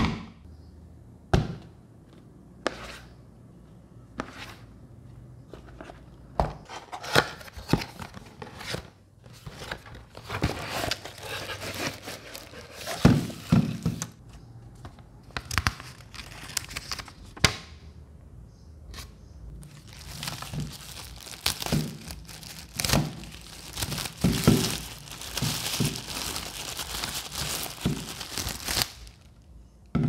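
Packaging being handled and opened: plastic wrap crinkling and tearing, with repeated thunks and knocks as the box and parts are moved and set down. The crinkling is densest in the last third.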